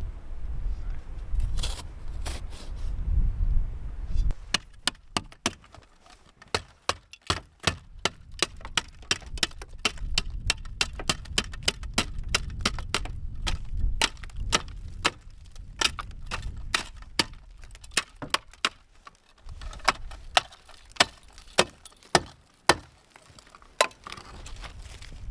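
A low rumble, then from about four seconds in a long irregular run of sharp cracks and snaps, a few each second, with a louder cluster near the end.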